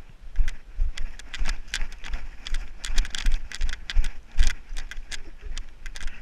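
Footsteps of a person moving on foot, about two thumps a second, with sharp rattling clicks from carried gear jostling against a worn camera.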